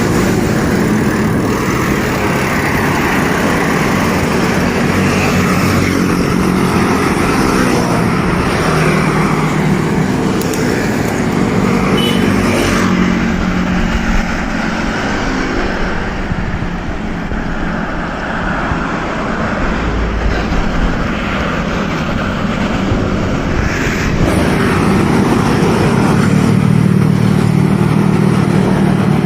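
Road traffic: motor vehicle engines running steadily, over a continuous rush of road noise.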